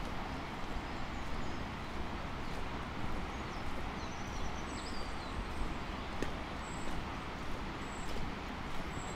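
Footsteps of someone walking along an old tarmac road at a steady pace, over a constant rushing background noise. A few faint, short bird chirps sound high above in the second half.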